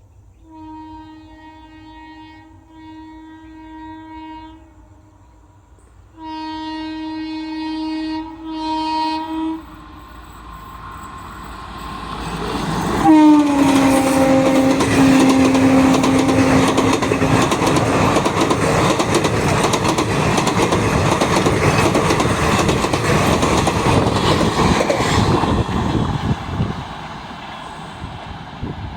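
An Indian Railways electric locomotive's horn sounds four times as the train approaches, the last two blasts louder. About 13 seconds in, the train passes at speed and a long horn blast drops in pitch as it goes by. The rush and clatter of the wheels and coaches goes on for about twelve seconds, then fades near the end.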